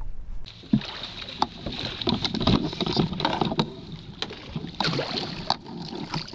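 Water splashing and sloshing close to the microphone as a sturgeon is brought into a landing net, with scattered knocks.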